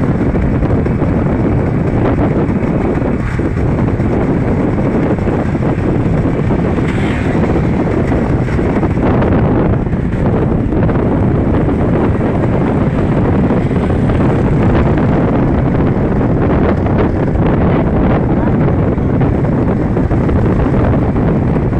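Steady wind rushing over the microphone together with the running noise of a moving open vehicle, a motorcycle tricycle, travelling at road speed.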